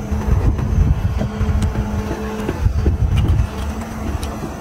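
Low rumble of a motor running, most likely a fishing boat's engine, with a steady hum that fades out about two and a half seconds in; small scattered clicks of food being handled and eaten.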